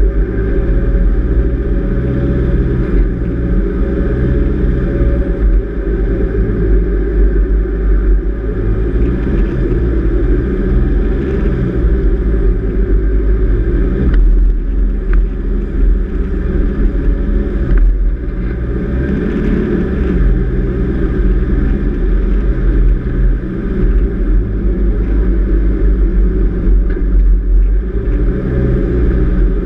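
Four-wheel drive driving along beach sand at a steady pace: a loud, continuous low rumble of engine and tyres.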